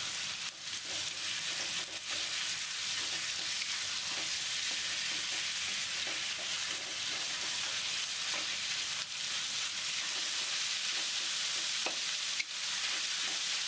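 Half-fat, half-lean minced pork sizzling in hot oil as it is stir-fried, with a steady hiss and a few faint clicks of stirring in the pan.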